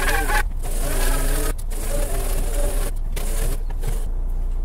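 Lobster boat's engine running steadily, a low even drone.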